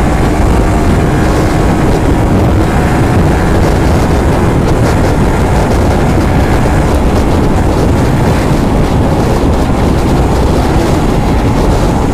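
Motorcycle riding at speed: the engine runs steadily under heavy wind rush on the microphone.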